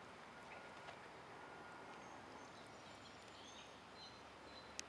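Near silence: faint outdoor creekside ambience with a few faint high chirps, likely distant birds, and one sharp click just before the end.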